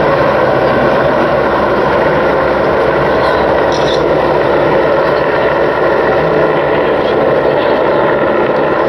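EH-101 Merlin helicopter flying low and coming into a hover: a loud, steady rush of rotor and turbine noise that holds even throughout.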